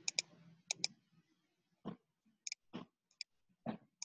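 A scattering of light, sharp clicks, several in quick pairs, with a few softer, duller knocks between them.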